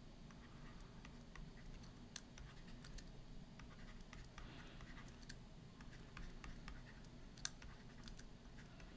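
Faint scattered clicks and light scratching of a stylus writing on a tablet screen.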